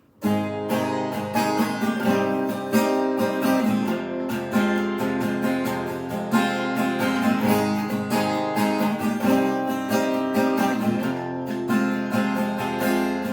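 Acoustic guitar being strummed steadily, the instrumental intro of a song, coming in suddenly right at the start.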